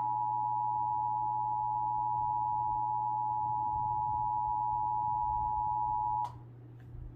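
Emergency Alert System attention signal: two steady tones sounded together, cutting off abruptly about six seconds in, after which only a low steady hum remains.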